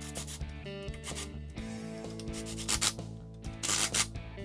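Cordless ratchet on an extension running steering-rack mounting bolts down into the golf cart frame, in several short bursts with the longest cluster near the end. Steady background music plays underneath.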